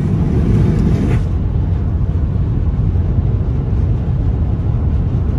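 Steady low road and engine rumble heard from inside a moving truck's cab, with a lighter hiss that drops away about a second in.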